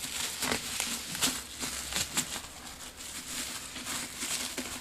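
Plastic bubble wrap being pulled off by hand: irregular crinkling and crackling with sharp ticks.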